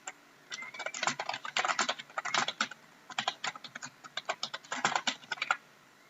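Computer keyboard being typed on in quick bursts of keystrokes, with short pauses between the bursts.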